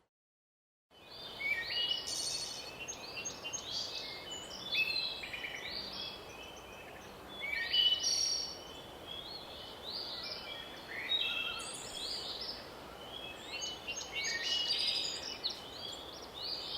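Several forest songbirds chirping and singing in quick, overlapping short phrases over a faint steady background hiss. The sound starts after about a second of dead silence.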